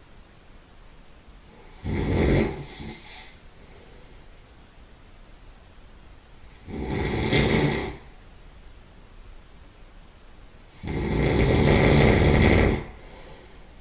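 A sleeping person's nasal snoring: three loud snores about four to five seconds apart, the last one the longest.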